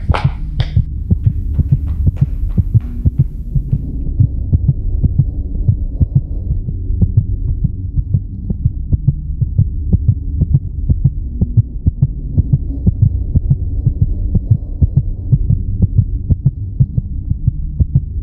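Heartbeat sound effect: a steady, regular low thumping over a continuous low hum.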